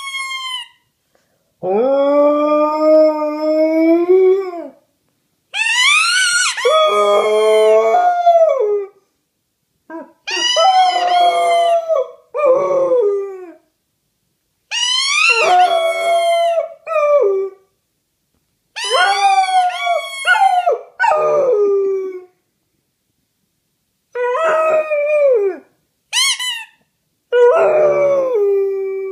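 A dog howling in about seven long, wavering calls, each one to three seconds long, with pauses between them. A few short, high squeaks of a rubber squeaky toy are heard among the howls.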